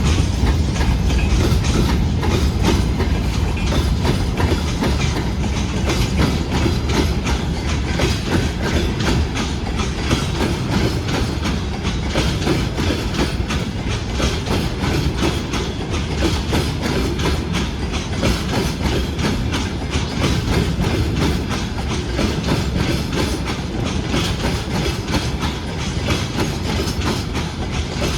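Freight train rolling past: a steady low rumble with rapid clickety-clack of the wheels over the rail joints, the rumble easing slightly after the start.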